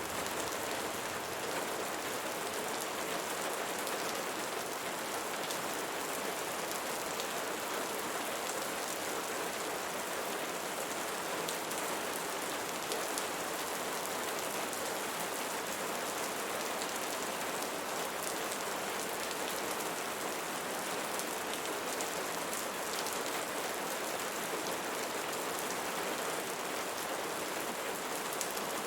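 Steady rainfall, an even hiss of many drops pattering on a surface, with no change in intensity.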